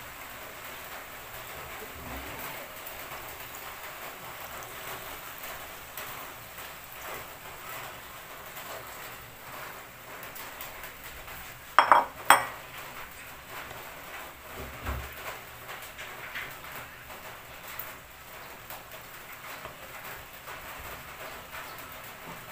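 Metal cooking pot clinking twice in quick succession about halfway through, as a utensil or lid strikes it, over a steady soft crackly hiss.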